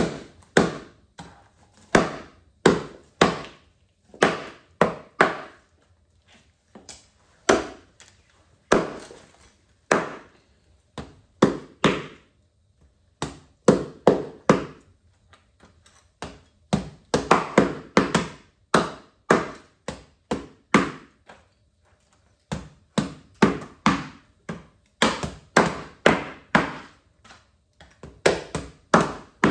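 A knife chopping on a cutting board in runs of heavy strokes, about two a second, with short breaks between the runs.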